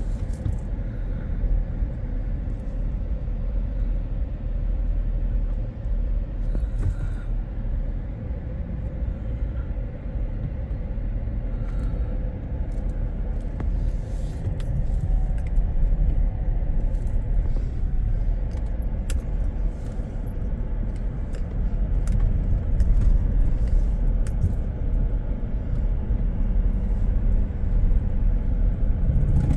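Steady low rumble of a car driving, with scattered faint clicks and ticks.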